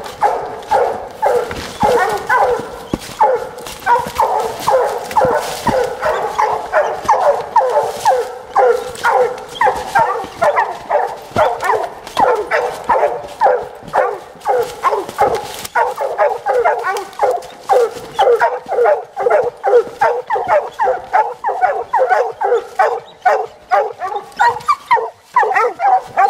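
Several coonhounds barking hard and without pause, short overlapping barks several times a second, as hounds do at a tree where they have treed a raccoon.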